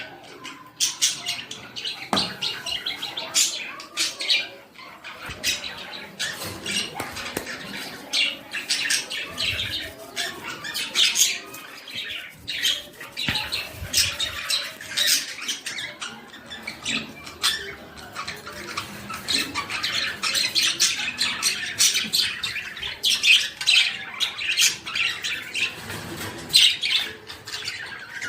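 Budgerigars chirping and squawking, many short calls overlapping without a break.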